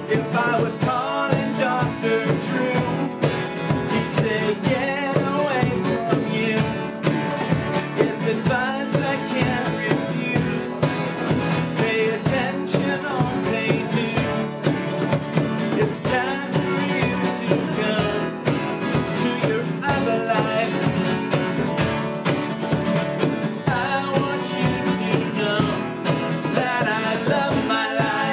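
Live rock band playing with guitars over a steady drum beat.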